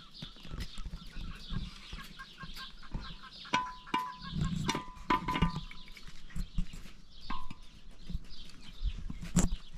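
Short calls from farmyard livestock, a few close together in the middle and one more later, among scattered clicks and knocks.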